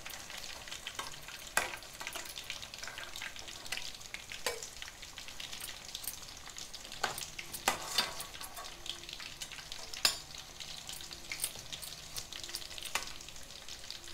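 Crumbed chicken pieces deep-frying in sunflower oil in a steel kadai, a steady sizzle, with sharp clinks of a steel slotted spoon against the pan every few seconds as the pieces are turned and lifted out.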